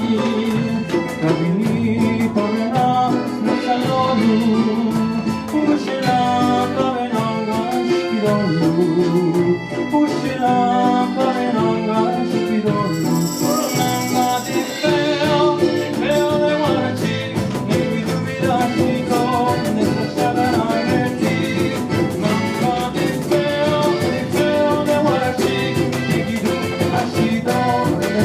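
Live Mexican folk music from Oaxaca: a small group playing, with a voice singing over the instruments.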